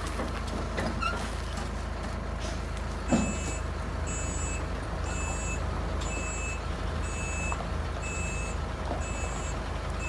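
A heavy flatbed truck reversing, its engine running with a steady low rumble. From about three seconds in, its reversing alarm beeps about once a second, each beep a high two-tone pip, just after a brief loud burst.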